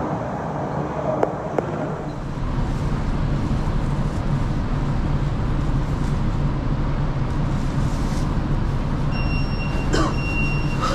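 Steady rumble of a Dalian Metro Line 12 train with a low hum, with two sharp clicks a little over a second in. About nine seconds in, a high electronic beep starts repeating in short pulses.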